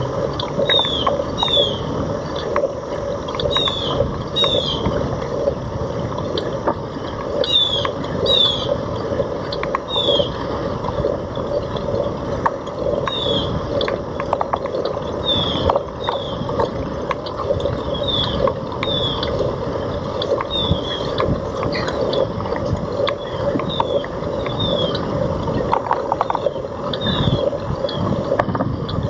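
Citi Bike being ridden, with a steady mechanical rattle and rolling noise and a short, high, falling squeak that recurs about once a second.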